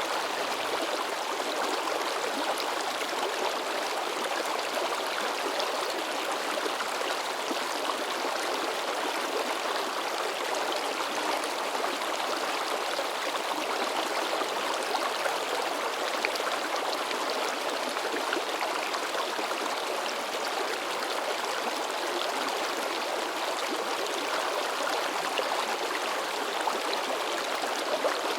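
A mountain river running over rocks, with steady splashing and babbling that does not let up.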